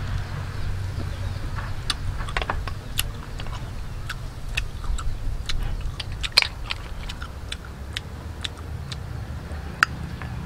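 Irregular small, sharp clicks of snail shells knocking together and being picked at with a toothpick, over a steady low rumble.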